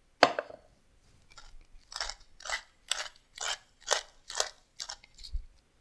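Wooden pepper mill being twisted by hand, grinding peppercorns in a run of crunchy bursts at about two turns a second. A single sharp knock sounds just before the grinding starts.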